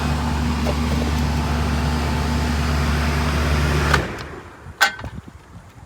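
Older R22 air-conditioning condensing unit running with a steady low hum from its compressor and fan, then shut off about four seconds in, the hum stopping abruptly. A single sharp click follows shortly after.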